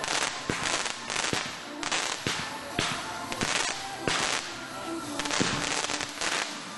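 Consumer fireworks cake firing a rapid string of shots, about two a second: launch thumps and aerial bursts with crackle between.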